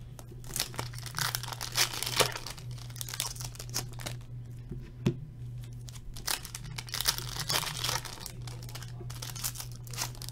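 Foil wrappers of Upper Deck AHL hockey card packs being torn open and crinkled by hand, in several bouts of crackling rustle with sharp snaps.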